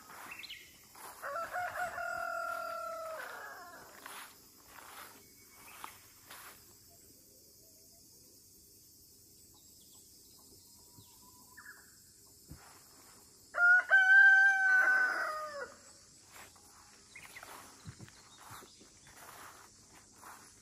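A rooster crowing twice: a long call with a drop at the end about a second in, and a louder one near the middle.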